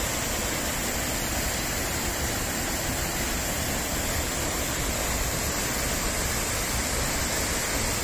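Waterfall on a mountain stream: a steady, even rush of falling water pouring onto rocks and tumbling down the rocky streambed below.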